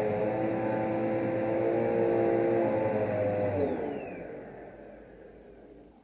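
Vacuum cleaner motor running with a steady whir, then switched off about three and a half seconds in, its pitch falling as it winds down to a stop.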